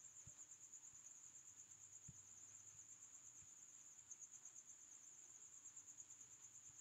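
Near silence: quiet room tone with a faint, steady, high-pitched cricket trill, and a couple of soft low thumps.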